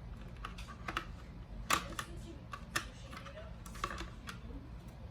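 Irregular sharp clicks and light taps of small parts and tools being handled, about eight in all and loudest a little under two seconds in, over a low steady hum.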